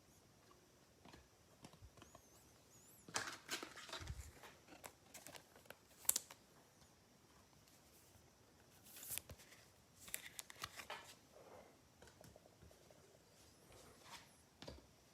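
Faint rustling and crinkling of trading-card pack wrappers and cards being handled, in a few short scattered bursts.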